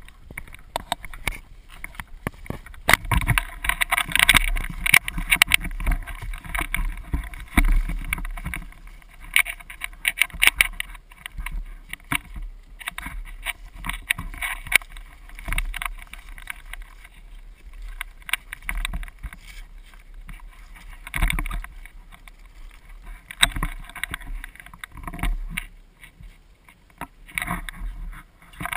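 Handling and movement noise picked up by a camera mounted on an airsoft rifle: irregular knocks, rattles and rustling as the gun is carried, with occasional low thumps.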